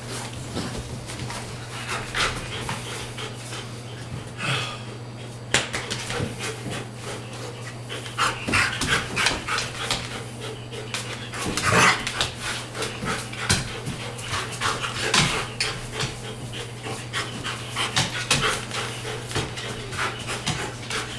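Large shaggy dog panting hard in short irregular breaths while play-wrestling, with scuffling of paws and bodies on a dog bed and wooden floor.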